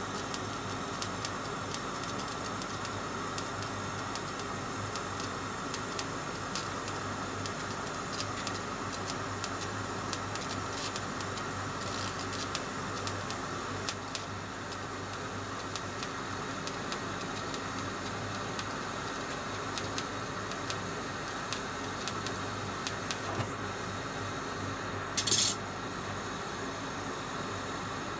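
TIG welding arc burning steadily on a metal plate, a constant hum and hiss with many small ticks. A short loud hiss comes near the end.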